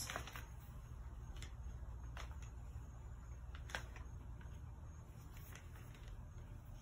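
Faint handling of a crochet hook's small box and its packaging during unboxing: a few soft clicks and light rustles over a low steady hum.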